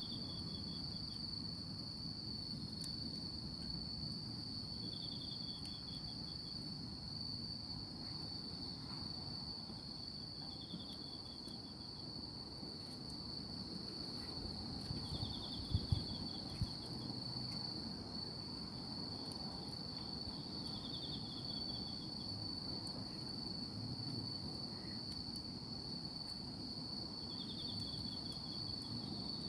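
Night insects calling: one steady high-pitched trill throughout, with a second insect giving a short pulsed chirp about every five seconds. A few sharp clicks about halfway through.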